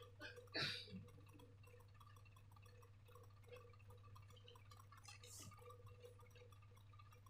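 Mostly near silence with a steady low hum, and a couple of faint wet, sticky sounds of slime being handled in the first second, the louder about half a second in.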